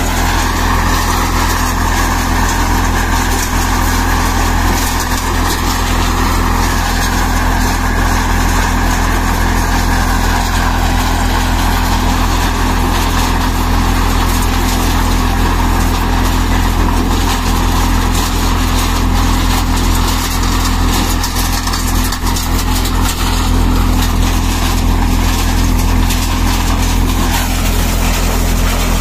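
Four-fan thresher running steadily, a loud continuous mechanical whir over a steady low engine hum. The higher whir shifts a little in pitch and fades out shortly before the end while the low hum carries on.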